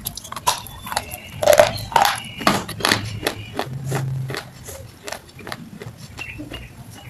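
Close-miked chewing of a mouthful of makhana kheer with nuts: rapid, irregular crunching clicks. A brief low hum comes about four seconds in.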